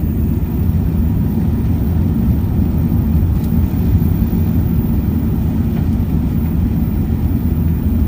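Emirates Airbus A380 after takeoff: a steady, loud, low rumble of engine and airflow noise.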